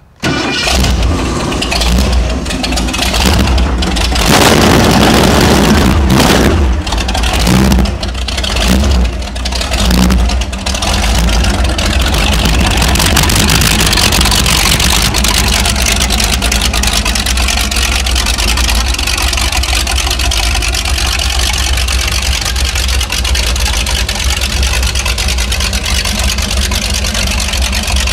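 A jet boat's 460 big-block V8 fires up and is revved with several throttle blips over roughly the first ten seconds, then settles into a steady, loud idle through open chrome exhaust stacks.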